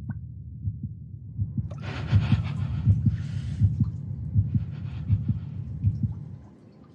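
A heartbeat sound effect: low, muffled thumps in a steady rhythm, about three beats every two seconds. A breathy rushing hiss rises over the beats about two seconds in. The thumps fade away near the end.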